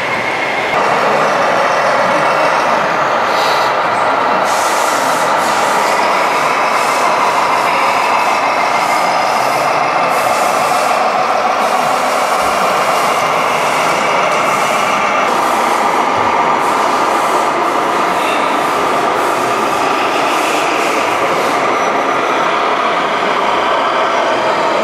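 Radio-controlled model trucks running: a loud, steady whine of small electric drive motors and gearboxes, rising sharply about a second in and then holding with no pauses.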